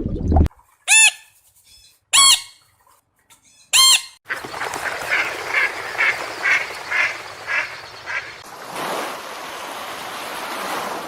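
Waterfowl honking: three loud, separate honks about a second and a half apart, then a run of shorter, quieter calls, about two a second, over a steady outdoor hiss that carries on after the calls stop.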